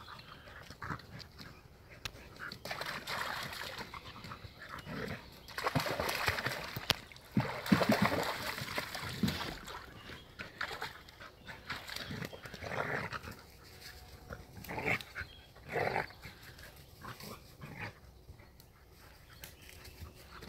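Two German hunting terriers (Jagdterriers) playing in and beside a shallow pond, with dog noises throughout. The loudest stretch, about a third of the way in, is one dog splashing through the water.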